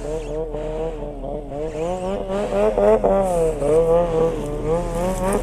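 Snowmobile engine running close to the microphone, its pitch wavering up and down with the throttle and climbing about halfway through.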